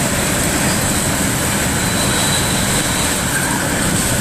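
Hurricane Michael's wind blowing hard and steadily around a car, a continuous rushing noise heard from inside the cabin.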